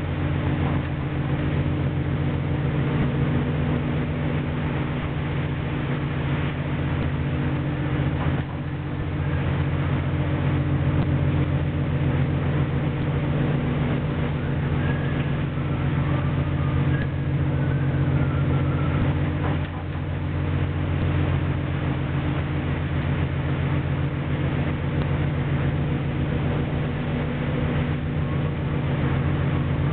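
Steady low drone of a fishing boat's engine and deck machinery, with a constant rush of noise above it.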